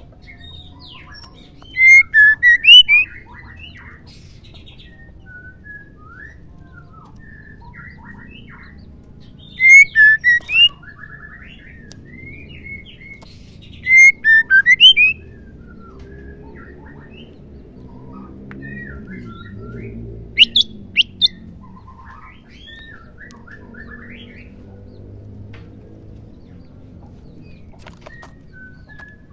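Female white-rumped shama calling: four loud bursts of quick, sharp notes, each under a second long, a few seconds apart, with quieter scattered chirps and whistles between them.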